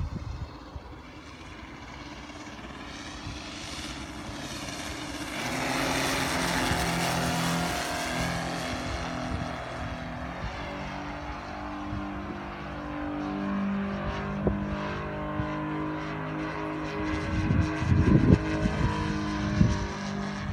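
Twin Saito FG-90R3 radial petrol engines of an RC Grumman F7F Tigercat model running together. They swell loudest about six seconds into a pass, then settle to a steady drone. A few low rumbling bumps come near the end.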